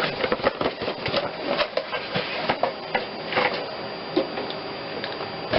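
Handling noise from a new set of spark plug wires: quick irregular clicks and plastic rustling as the wires and their boots are handled.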